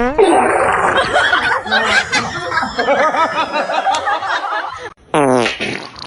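Many people laughing together, like a comedy laugh track, for about five seconds, then a single short sound that falls in pitch near the end.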